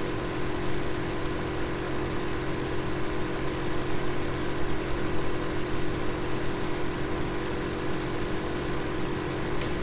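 A steady, unchanging hum with several held tones over a constant hiss, like a machine or fan running.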